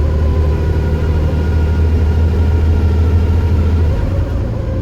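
Bus engine and drivetrain running under way: a loud low drone with a faint whine above it that falls slightly in pitch. The drone eases about four seconds in.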